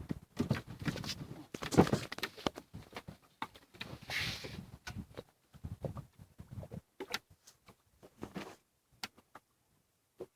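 Irregular knocks, taps and clatter from gear being handled in a small fishing boat, with a short hiss about four seconds in.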